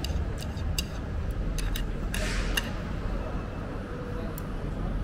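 Light clicks and clinks of chopsticks against a ceramic plate, several times, over a steady low rumble of traffic, with a brief rush of hiss about two seconds in.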